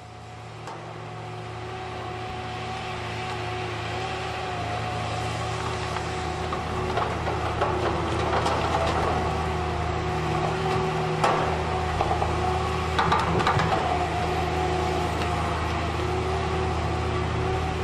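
Log loader and slasher saw running: a steady diesel engine drone with a hydraulic whine, growing louder over the first few seconds, and a few sharp knocks of logs being handled about 11 and 13 seconds in.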